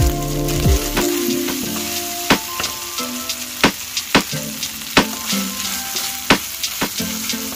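Diced bacon sizzling in a nonstick frying pan as a wooden spoon stirs it: a steady frying hiss with sharp pops and clicks about once or twice a second.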